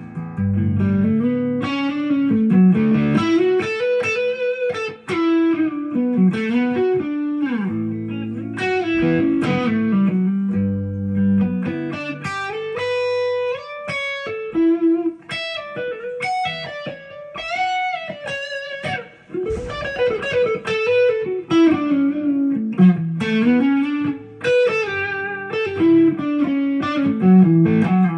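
Epiphone Les Paul Custom electric guitar playing a single-note lead melody, with many string bends and vibrato and a clear, lightly driven tone.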